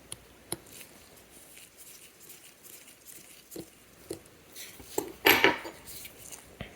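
Small metal clicks and taps of watchmaker's tools working on a watch movement, with a short louder clatter about five seconds in.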